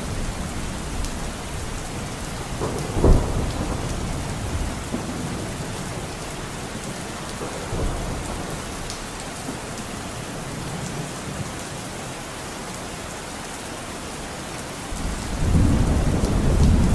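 Steady rain with rolling thunder: a short, loud thunderclap about three seconds in, and a louder low rumble building near the end.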